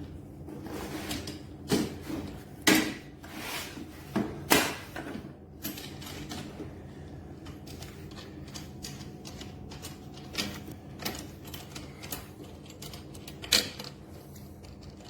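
Scattered clicks and knocks of mower parts and packaging being handled during assembly, over a steady low hum. Several sharper knocks fall in the first five seconds, and one more comes near the end.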